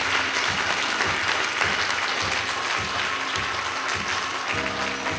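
Audience applauding steadily, a dense patter of many hands clapping. Music comes in faintly under it near the end.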